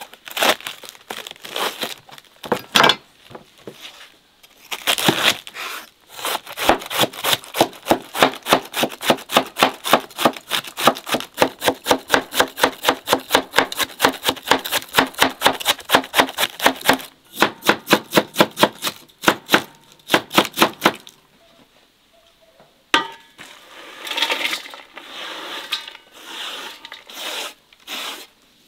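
Large kitchen knife shredding a head of white cabbage on a wooden board: a few separate cuts, then a fast, even run of crisp chops, about four a second, that stops about 21 seconds in. Near the end, a rustle of shredded cabbage being tipped into an enamel bowl.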